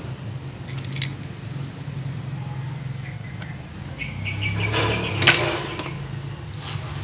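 Die-cast toy cars clicking and clattering against each other as they are handled, with the loudest clatter about five seconds in, over a steady low hum.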